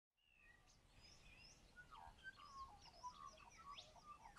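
Faint birdsong: several birds chirping and whistling in quick, varied calls, fading in from silence and growing louder toward the end.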